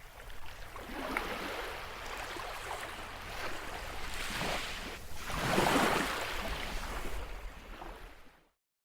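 Ocean surf: a steady wash of waves, with a louder surge in the middle, fading out near the end.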